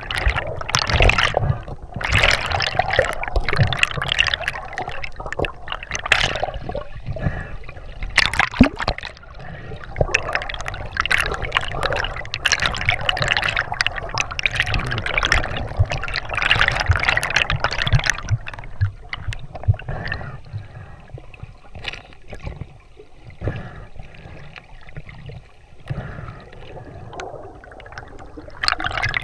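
Air bubbles bubbling and gurgling underwater around a diver, heard through the camera housing, in dense irregular surges with sharp clicks and knocks. The bubbling eases off and grows quieter after about eighteen seconds.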